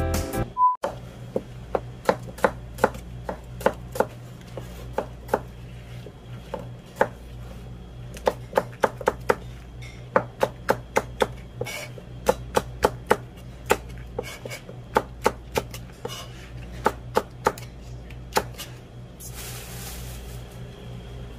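Kitchen knife chopping green onions on a plastic cutting board: sharp, irregular knocks, often in quick runs. Near the end a plastic bag rustles. A steady low hum lies underneath.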